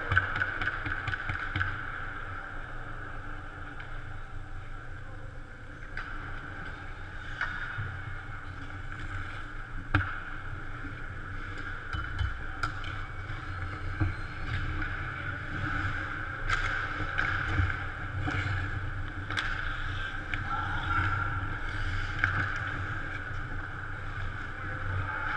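Ice-rink ambience during a pickup hockey game: a steady arena hum with occasional sharp clacks of sticks and puck, the loudest about ten seconds in.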